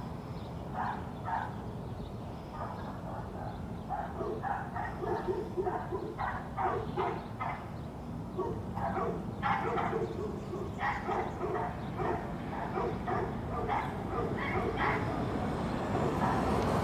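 A dog barking in quick runs of short barks, several a second, starting a few seconds in, over a steady low background rumble.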